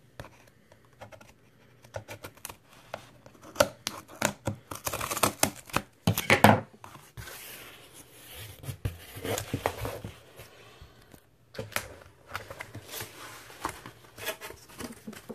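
Corrugated cardboard shipping box being opened by hand: packing tape tearing and cardboard flaps scraping and rustling in irregular scratchy bursts, loudest about five to six seconds in.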